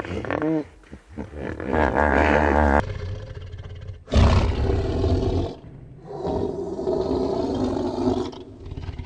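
A large farm animal bellowing: a drawn-out wavering call, then a loud rough blast of breath, then a second long call.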